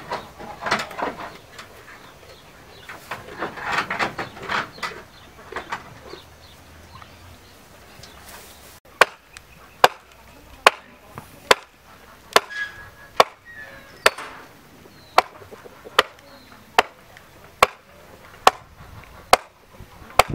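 A hen clucking close by. Then, from about nine seconds in, a steady series of sharp hammer blows on a wooden fence post where chicken wire is being fixed, about one blow every 0.85 seconds.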